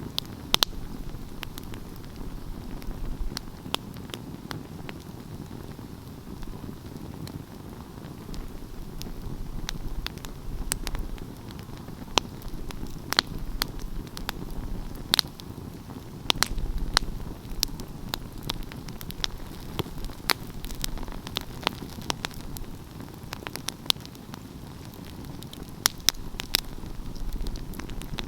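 Wood fire burning: a steady low rush of flame with irregular sharp crackles and pops.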